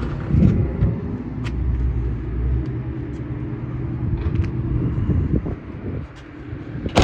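Low, steady rumble of a car engine idling, which drops off about two and a half seconds in, with a few light clicks and a sharp knock at the end.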